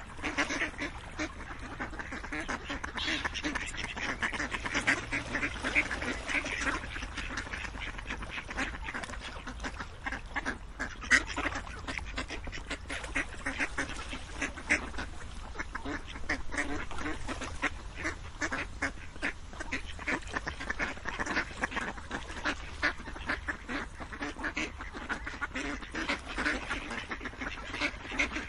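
A flock of ducks quacking continuously, many short calls overlapping, with one louder call about 11 seconds in.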